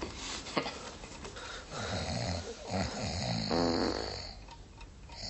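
A sleeping boy snoring, with a few snores in a row in the middle.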